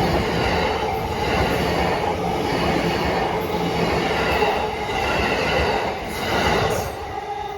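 A train passing close by over a level crossing, its wheels squealing with a steady high screech over the rumble of the cars. The sound fades near the end as the train goes by.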